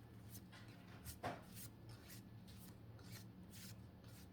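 Faint sliding and flicking of Pokémon trading cards being handled and flipped through, with a sharper flick about a second in.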